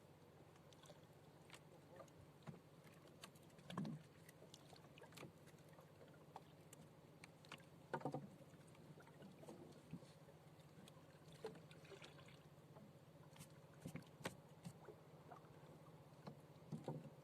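Faint scattered taps and knocks on a small rowboat, louder a few times, over a steady low hum.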